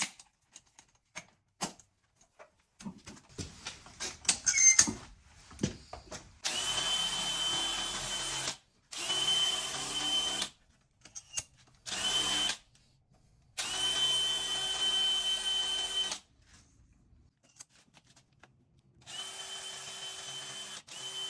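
Power drill running in five short bursts of one to two and a half seconds each, with a steady motor whine in each. Before the bursts there are a few handling clicks and knocks.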